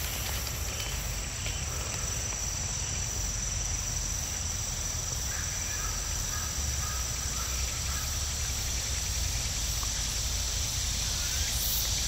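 Insects chirring in one steady, unbroken high-pitched drone, over a low rumble.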